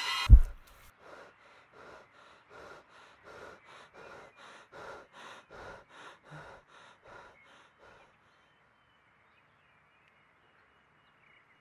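A single deep boom, then a person's quick gasping breaths, about two a second, for about seven seconds before they stop: a boy crying.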